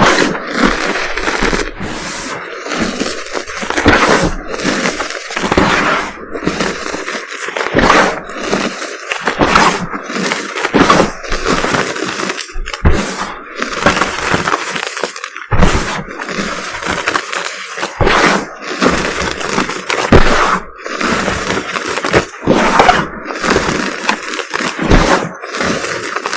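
Reformed gym chalk being crushed and crumbled by hand, a dense run of crunching and crackling with frequent sharp cracks.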